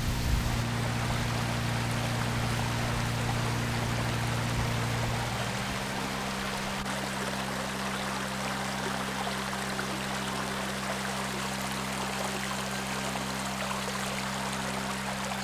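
Small forest brook running over stones: a steady rush of water, under soft background music whose low held notes change about five seconds in.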